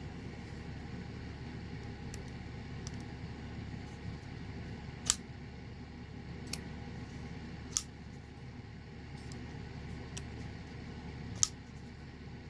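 Button-lock folding knife blade being flicked open and snapped shut, four sharp clicks a second or more apart, over a steady low hum.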